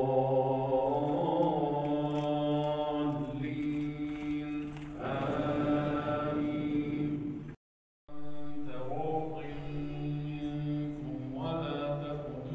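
An imam chanting Quran recitation aloud while leading congregational prayer over a microphone: one man's voice drawing out long melodic held notes. The sound cuts out completely for about half a second just past the middle.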